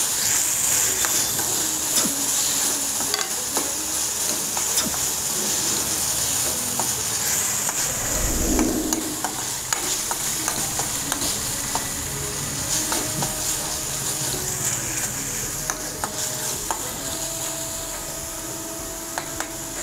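Chopped onion and ginger paste sizzling in a little oil in a stainless steel kadai while a steel ladle stirs and scrapes it, with frequent light clicks of the ladle against the pan.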